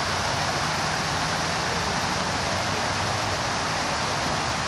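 Steady rushing splash of Buckingham Fountain's many water jets falling into its basin.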